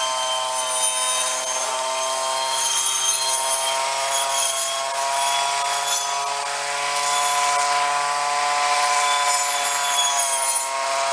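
Snapper commercial weed eater's two-stroke engine running at high speed, spinning a circular saw blade through grass. The engine note holds steady, sagging a little near the middle and climbing again. It is running better, which the operator puts down to the engine having warmed up.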